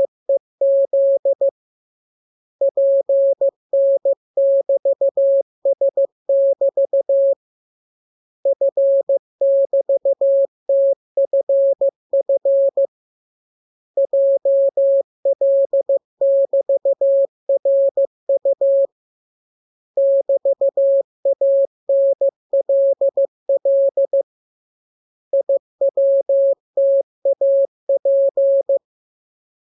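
Morse code practice tones: a clean, single-pitch beep keyed into dots and dashes, sent in runs of characters of about four to five seconds each with pauses of about a second between them.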